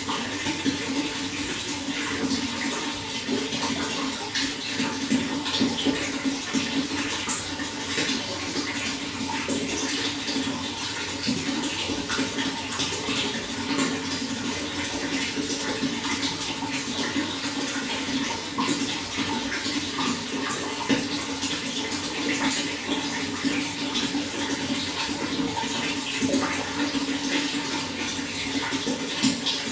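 Running water flowing steadily, a continuous rushing splash with small irregular spatters throughout.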